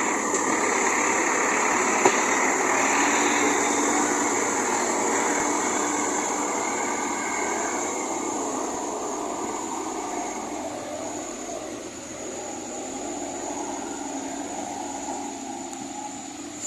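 JCB backhoe loader's diesel engine and machinery running steadily with a thin high whine over the noise, slowly growing quieter.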